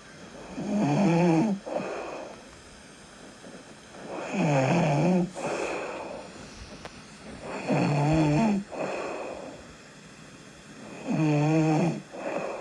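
A sleeping person snoring: four snores about three and a half seconds apart, each followed by a softer breath.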